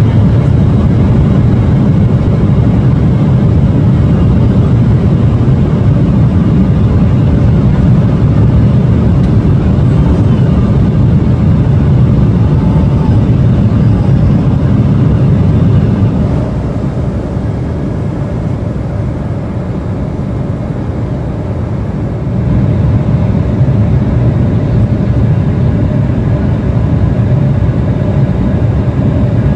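Cabin noise of an Embraer 175 airliner in flight: a steady low roar from its two turbofan engines and the airflow, heard from a window seat. The roar drops somewhat for a few seconds past the middle, then comes back up.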